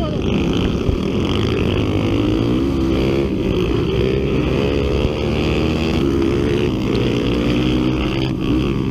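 Honda XR 250 Tornado trail motorcycle's single-cylinder four-stroke engine running under load, its pitch rising and falling as the throttle is worked.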